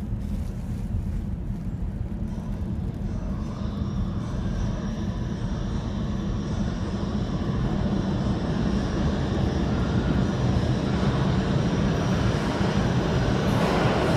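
R142 subway car running and picking up speed: a steady rumble of wheels and motors that grows louder, with a faint high tone coming in a few seconds in.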